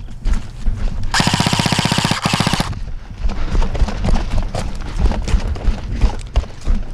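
Automatic airsoft gun firing a full-auto burst of about a second and a half, briefly broken near its end, over footsteps and rustling.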